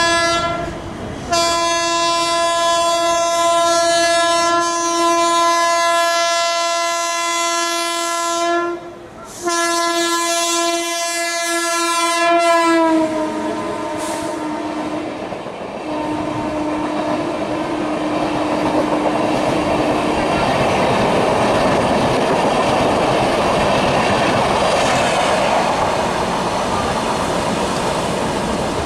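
A WAP-7 electric locomotive's horn blowing in long continuous blasts with a few short breaks. Nearly halfway through, its pitch drops slightly as the locomotive passes. The horn stops about two-thirds of the way in, leaving the rumble and wheel clatter of the LHB coaches rolling past at speed.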